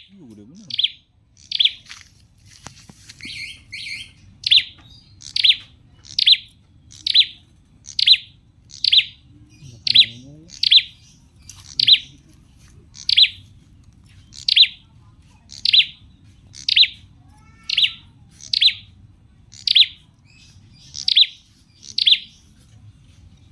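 A bird calling with one short, sharp chirp at a time, repeated steadily about once a second.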